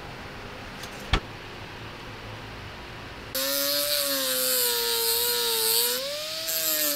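A single sharp click about a second in, then an electric angle grinder grinding a small steel clip from about three seconds in: the motor's whine sags and rises as the disc is pressed on and eased off, over the hiss of the disc on steel.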